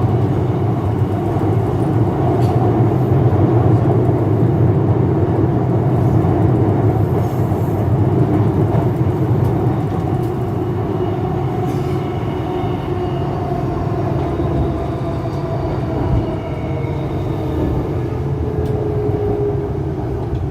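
Shanghai Metro 09A02-type electric train running between stations, heard from inside the carriage: a steady, loud rumble of wheels on rail with a faint whine that slowly shifts in pitch.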